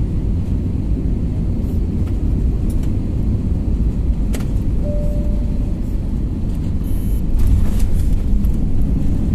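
Airliner cabin noise during the landing roll: a steady low rumble of the jet engines and the wheels on the runway, with a few small cabin rattles and a slight swell in loudness near the end.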